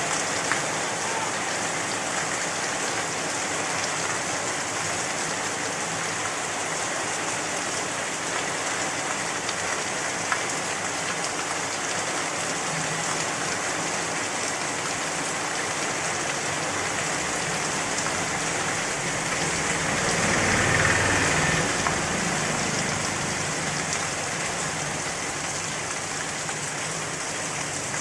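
Heavy rain falling steadily, an even hiss of rain on surfaces. About two-thirds of the way through it swells louder for a couple of seconds with a low rumble underneath.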